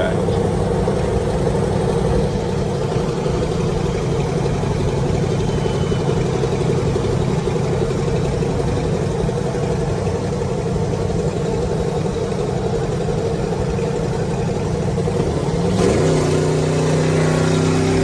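Squatted pickup truck's engine with a loud aftermarket exhaust running steadily, then revving up with a rising pitch near the end.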